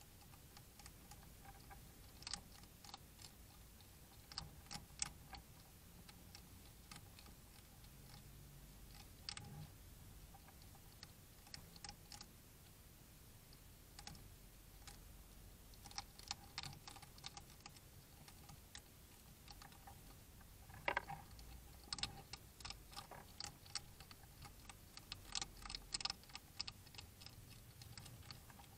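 Two European hedgehogs eating, their chewing heard as faint, irregular sharp crunching clicks that come in clusters over a steady hiss, with one louder crunch about two-thirds of the way through.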